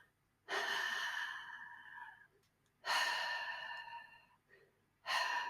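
A woman's audible breaths through an open, relaxed mouth, demonstrating the voiceless /h/ sound: two long breaths of about a second and a half each, fading as they go, and a third starting near the end.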